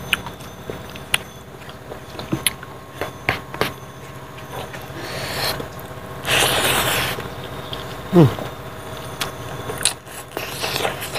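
Close-up eating sounds from a mouthful of rice and pork: wet lip smacks and chewing clicks scattered throughout. There is a breathy rush about six seconds in and a short falling vocal sound just after eight seconds.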